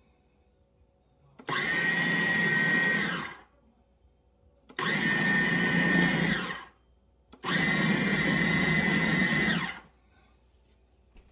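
KitchenAid 13-cup food processor motor pulsed three times, running about two seconds each time and winding down with a falling whine after each pulse. The blade is cutting ice water into pie-crust dough, with the water added a little at a time between pulses.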